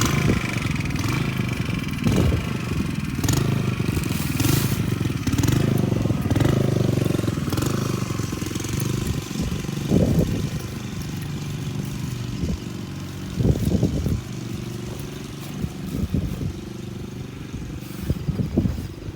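A small engine running, its pitch rising and falling repeatedly, then settling to a quieter, steadier run about halfway through, with a few knocks later on.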